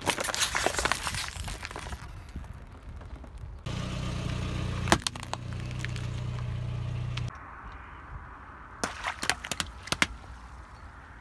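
A car tyre rolling over and crushing things. The first few seconds are a dense run of crackling and snapping as a cardboard box is flattened. Next the car's engine runs steadily with one sharp crack partway through. A quick cluster of sharp pops and cracks comes near the end.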